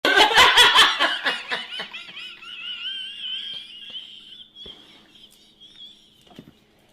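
A person laughing hard: a loud burst of rapid laughs that starts suddenly and, after about two seconds, thins into a high, thin, wavering sound that slowly fades out.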